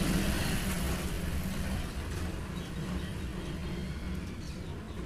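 Steady low rumble with a hiss over it, easing off slightly about two seconds in.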